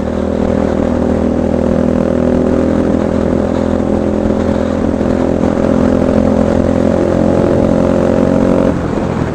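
Kawasaki Bajaj Rouser RS200's single-cylinder engine running at steady cruising revs while riding, with wind noise rushing over the microphone. Near the end the engine note drops.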